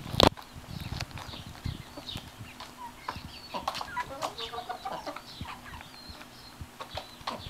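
A flock of hens clucking and giving short chirping calls while their beaks peck at drone brood comb in a wooden frame, making a patter of small clicks. One sharp knock stands out just after the start.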